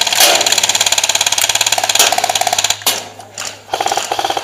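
Automatic airsoft gun firing on full auto: a rapid, even clatter of shots. One long burst stops almost three seconds in, and shorter bursts follow near the end.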